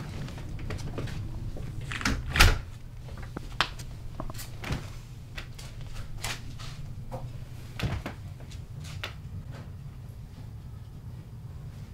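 A door shutting with a thump about two seconds in, then scattered light clicks and taps of small things handled on a table, over a low steady hum.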